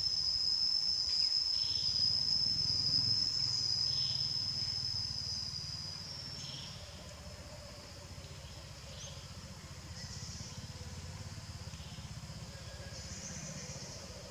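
Steady high-pitched insect drone, cicada- or cricket-like, that weakens about six seconds in, with short soft chirps about every second or two and a low rumble underneath.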